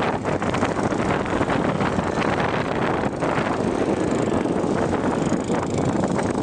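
Boat engine running steadily underway, with wind buffeting the microphone.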